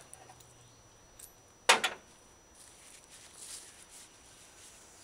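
Tool handling in an engine bay: a single sharp clack about a second and a half in, with faint scuffs and rustles around it.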